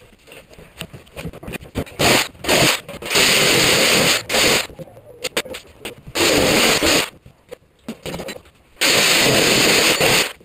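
Handheld corded power saw run in five bursts of about half a second to a second and a half, cutting into a window frame, with quieter knocks between the bursts.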